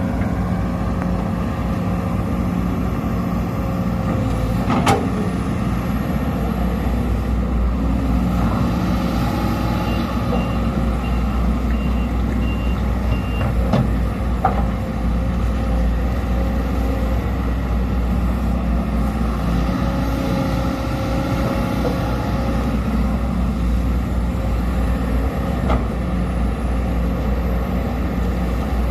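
Sumitomo SH210 hydraulic excavator's diesel engine running steadily while it works, with a few sharp knocks. About ten seconds in comes a short series of high beeps.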